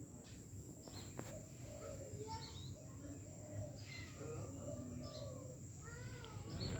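Faint bird calls and chirps, scattered short whistled notes over a quiet outdoor background, with a thin steady high tone.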